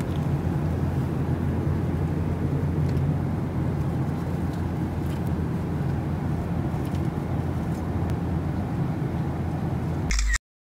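Steady cabin noise of an airliner in flight: a low rumble with a few faint clicks from handling a cardboard snack box. It cuts off abruptly near the end.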